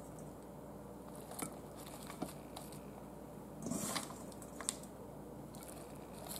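Cut cabbage leaves rustling and crunching faintly as a hand presses them down into a pressure cooker's inner pot. A few soft clicks and a louder crinkling patch come about four seconds in, over a steady low hum.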